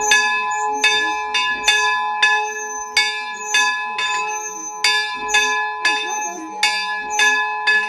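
Church bell ringing in quick repeated strikes, about two to three a second, each stroke ringing on into the next.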